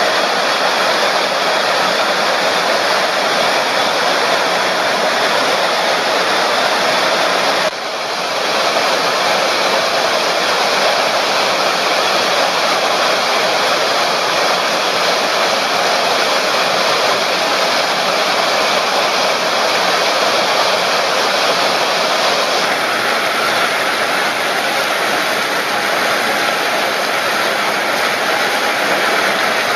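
Torrential cloudburst rain pouring onto flooded pavement and standing water: a loud, dense, steady hiss of splashing drops. It dips briefly about eight seconds in.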